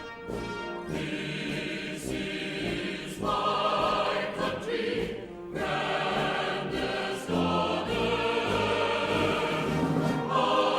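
Background music: a choir singing held notes with orchestral accompaniment.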